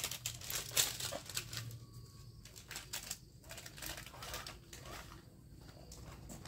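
Plastic bag crinkling and rustling as it is handled and packed, a quick run of sharp crackles in the first three seconds, then fainter and more scattered.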